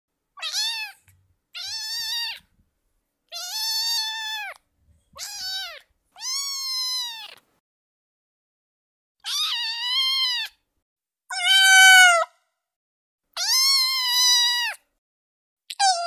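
Young kittens meowing: about eight separate high, thin meows, each half a second to a second and a half long, some rising and falling in pitch, with a pause of about two seconds near the middle. The loudest meow comes about three quarters of the way through.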